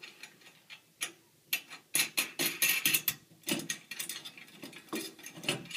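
Hex nuts, lock washers and steel carriage bolts clicking and clinking as the nuts are started by hand onto the bolt threads of a galvanized steel mounting bracket. The clicks come irregularly, sometimes in quick little runs.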